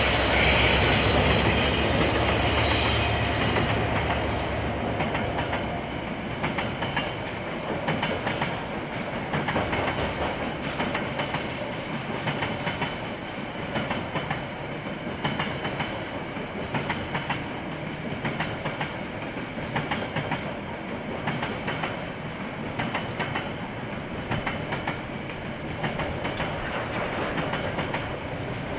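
Freight train passing: the two diesel locomotives' engines run loud and low for the first few seconds, then the container wagons follow with a repeating clickety-clack of wheels over the rail joints under a steady rolling rumble.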